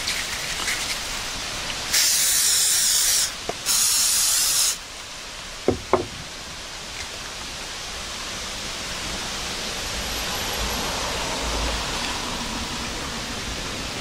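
Two bursts of aerosol cooking spray (Pam olive oil spray) hissing into a pie iron, each about a second long with a short pause between, followed by two quick knocks.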